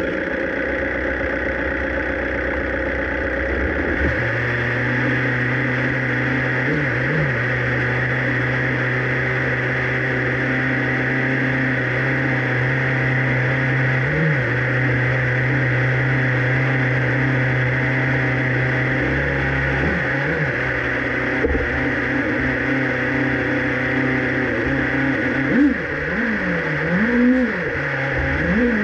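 Formula 1 car's turbocharged V6 engine idling right after start-up, with a steady pitch. It gives a short throttle blip now and then, and a series of three quick revs near the end.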